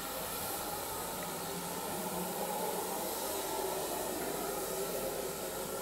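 Steady, even hiss of steam from locomotives standing in the yard.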